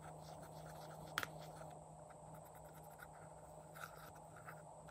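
Faint scratching and small ticks of a plastic spatula digging pressed glitter eyeshadow out of a palette pan, with one sharper click about a second in.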